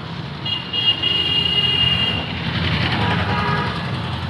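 Road traffic rumbling, with a vehicle horn sounding steadily for about a second and a half from about half a second in.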